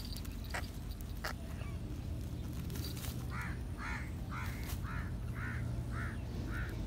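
Myna caught in a shikra's grip, squawking in distress: a run of about eight short, harsh calls, roughly two a second, starting about three seconds in.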